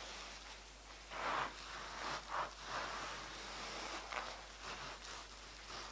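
Terry-cloth towel rubbing over the faceted drills of a diamond painting, a soft scrubbing rustle in a few short strokes.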